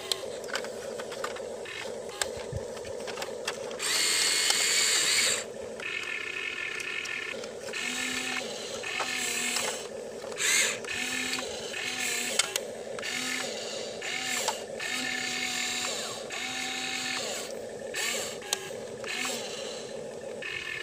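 Huina RC excavator's small electric motors and gearboxes whining as the boom, arm and bucket move, the tone stepping on and off as each movement starts and stops, with scattered clicks. A louder, hissier stretch lasts about a second and a half, starting about four seconds in.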